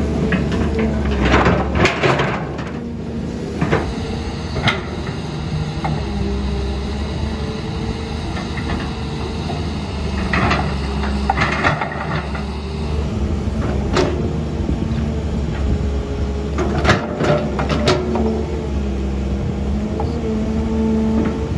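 Excavator's diesel engine running steadily under load, with several short clanks, knocks and rattling bursts from the machine and its bucket as it works.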